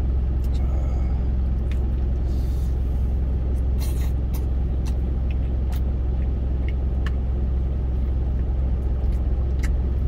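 Idling truck engine, a steady low rumble heard inside the cab. A spoon clicks against a stainless steel food container now and then.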